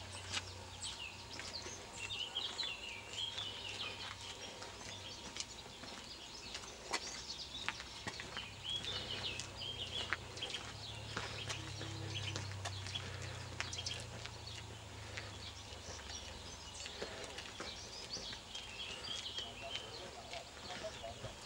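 Small birds chirping and singing in short spells, over irregular footsteps on a dirt and gravel track and a steady low hum.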